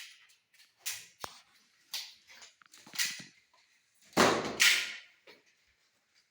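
Short scraping and rustling noises, a few separate bursts with a sharp click just after the first, and a louder double burst about four seconds in.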